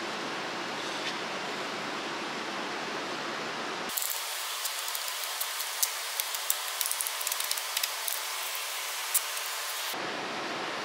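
Steady hiss with light metallic clicks and taps, scattered over several seconds in the middle, as a piston held in a ring compressor is worked into a cylinder liner of a truck engine block.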